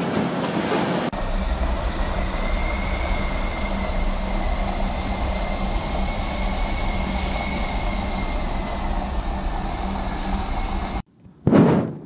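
Typhoon wind blowing hard and steadily: a dense rushing noise with a deep rumble under it and a faint thin whistle over the middle part. Near the end it cuts out suddenly, then one short loud rush.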